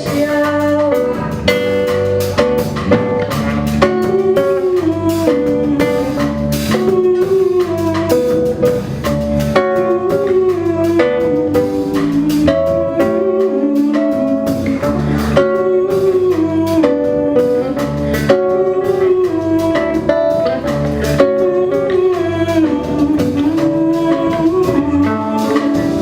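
Instrumental stretch of an MPB song played by acoustic guitar, bass and drum kit, the guitar carrying a moving melody over a steady groove.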